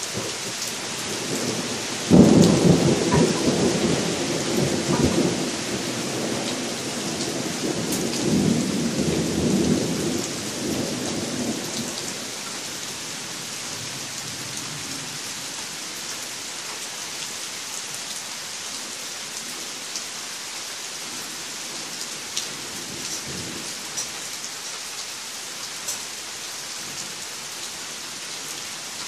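Rolling thunder breaks sharply about two seconds in, rumbles in swells for about ten seconds and fades away, over steady rain on the trees and ground. A few louder single drops tick now and then near the end.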